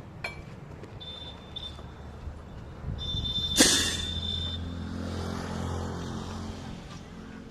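Construction-site noise: a steady engine hum with a high beeping tone, and one sharp bang about three and a half seconds in. The hum swells after the bang.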